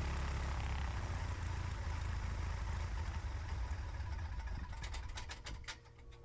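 Cessna 150's four-cylinder Continental O-200 engine idling steadily, then shut down: about four and a half seconds in it runs down, with a handful of last irregular pops as the propeller stops.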